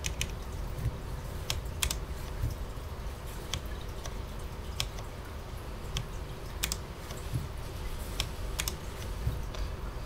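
Keystrokes on a Cherry MX 10.0N keyboard's low-profile linear MX Speed switches: about a dozen single key presses, sharp clicky taps spaced irregularly rather than continuous typing.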